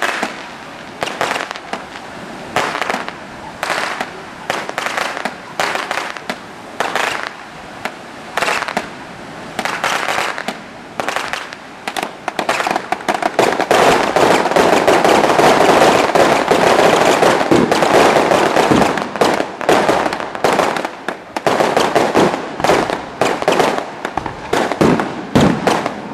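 Aerial fireworks display: a string of sharp shell-burst bangs, one or more a second. About halfway through the bursts thicken into a louder, denser barrage for several seconds, then thin out again.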